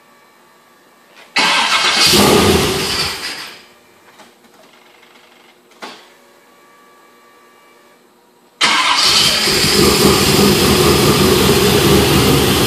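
Cold start of a GMC Syclone's swapped-in LS V8, one of its first starts: cranked about a second in, it fires and runs briefly, then dies away over a couple of seconds. After a click near six seconds it is cranked again at about eight and a half seconds, catches and keeps running steadily and loudly.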